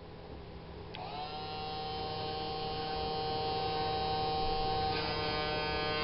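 Small electric cutter motor of a homemade engraving pantograph switched on about a second in, spinning up to speed and then running with a steady whining hum. Its tone shifts slightly about five seconds in.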